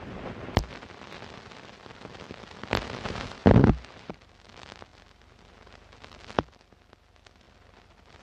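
Hiss and crackle of an old film soundtrack, with sharp pops a little after the start, near three seconds and past six seconds, and a louder thump about three and a half seconds in. The hiss grows fainter in the second half.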